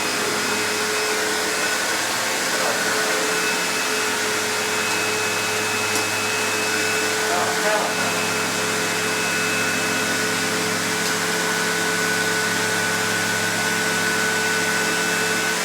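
Hoover Insight vacuum cleaner running steadily at full speed: a constant rushing of air with a high motor whine.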